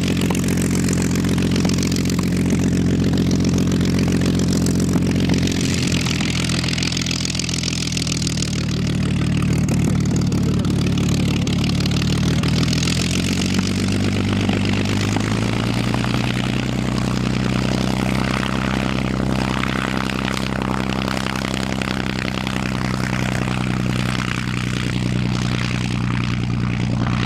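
Austro-Daimler inline six-cylinder aero engine of an Albatros D.III biplane running with its propeller turning, steady at first, then throttling up about halfway through, the pitch rising and holding high as the plane begins its takeoff run.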